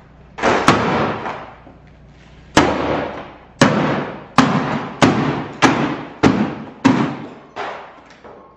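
Hammer blows smashing a makeup kit: about ten sharp strikes, each followed by a short clattering decay. Two come close together near the start, then after a pause a steady run of blows follows about every two-thirds of a second.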